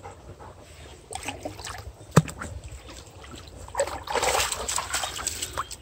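A Labrador wading and splashing in a shallow, stony brook, with a sharp knock about two seconds in and heavier splashing from about four seconds in.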